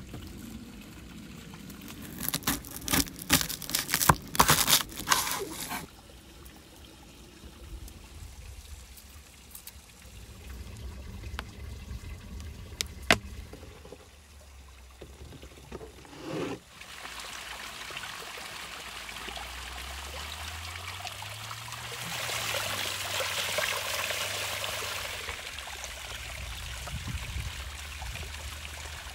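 Dry garlic skin crackling in a quick cluster as a bulb is broken into cloves, in the first few seconds. From a little past halfway, water running from a stone spring spout, loudest a few seconds before the end.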